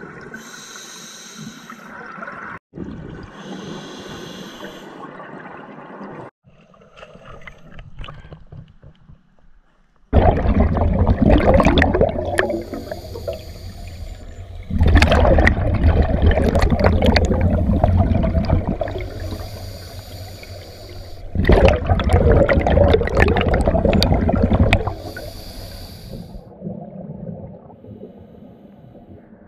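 Scuba diver breathing through a regulator underwater: a thin hiss on each inhale, then a loud rush of exhaled bubbles. Three full breaths come about six seconds apart after about ten seconds, with fainter bubbling before that.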